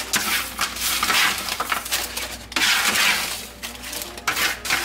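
Metal tongs scooping french fries off parchment paper into a paper-lined plastic basket: scraping, rustling and paper crinkling in a series of short bursts.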